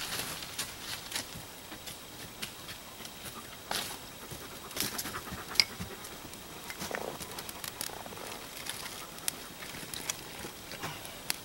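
Irregular sharp scrapes, snaps and crackles as a tinder bundle is lit by hand and catches flame, with a German shepherd moving about close by.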